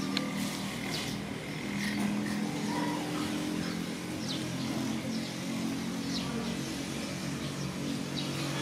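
An engine running with a steady low hum whose pitch shifts slightly up and down, with faint short high squeaks now and then.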